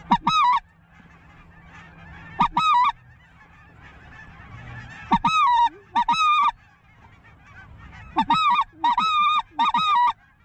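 Goose call blown close by, in short runs of two or three loud honks every couple of seconds, some notes breaking from a low moan up into a high honk. Between the runs the faint calling of the circling flock can be heard.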